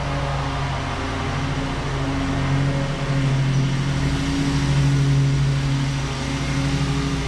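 Toro Z-Master 4000 zero-turn mower's engine running steadily, growing a little louder a few seconds in and easing back near the end.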